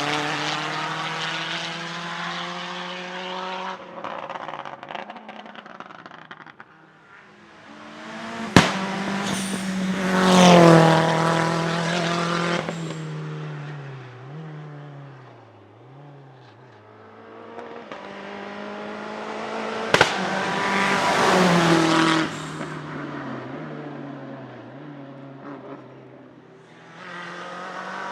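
Small four-cylinder turbocharged hillclimb race cars accelerating past one after another, each engine revving up and dropping sharply at gear changes, then fading up the hill. A single sharp bang rings out twice, about eight and a half seconds in and again about twenty seconds in, typical of the misfiring anti-lag system.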